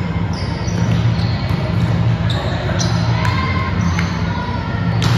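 Indoor volleyball rally in a large gym: sharp smacks of hands on the ball and short high squeaks of sneakers on the court floor, over a steady low hum.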